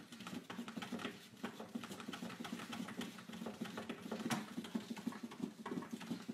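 A cat pawing and scratching at a pet-food storage bin: a steady run of quick, irregular taps and scrapes.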